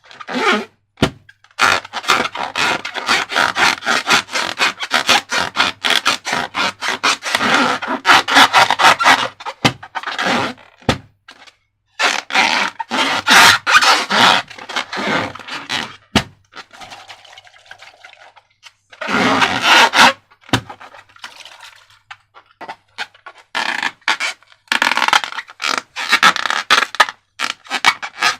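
Slime and rubber balloons being handled close to the microphone: dense crackling and scraping in stretches of several seconds, broken by short pauses.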